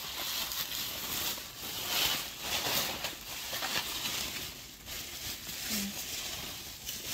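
Plastic bubble wrap crinkling and rustling as it is handled and pulled away from a wrapped doll, in a string of uneven surges.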